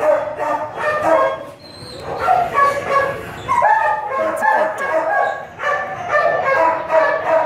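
Several dogs barking and yipping in a kennel block, their barks overlapping one another with hardly a break.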